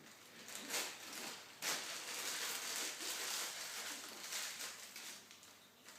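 Rustling and scuffing as a small chamois leather pouch holding a flint and steel is handled, loudest from about one and a half seconds in until about four and a half seconds in.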